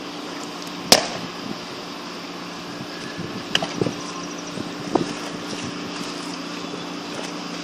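A baseball pitch smacking into the catcher's mitt: one sharp pop about a second in, over a steady low hum. A few fainter knocks follow later.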